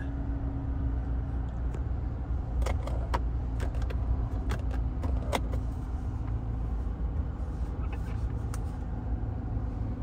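2014 Corvette's 6.2-litre V8 idling steadily, heard from inside the cabin, with a few sharp clicks.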